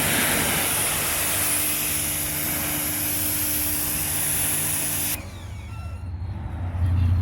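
Sun Joe electric pressure washer spraying: a steady hiss of water over the hum of the pump motor, which cuts off suddenly about five seconds in as the trigger is let go. A low rumble comes in near the end.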